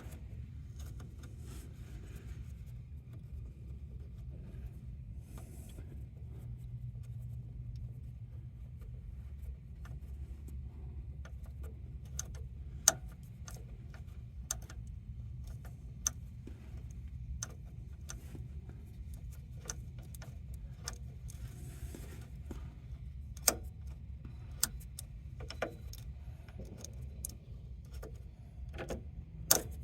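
Scattered light metallic clicks and ticks from a wrench turning the parking brake cable adjuster on a Kawasaki Teryx, irregular and more frequent in the second half, over a low steady hum.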